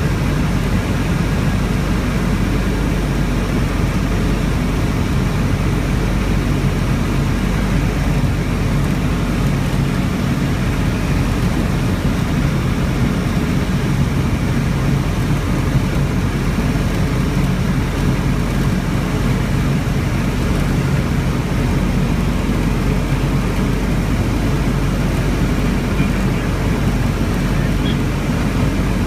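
Ultralight aircraft's engine and propeller running steadily in flight, heard from inside the cockpit, with a constant rush of air over the airframe.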